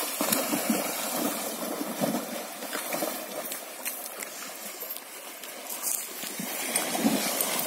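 A horse wading through a shallow river, with irregular splashing and sloshing of water around its legs.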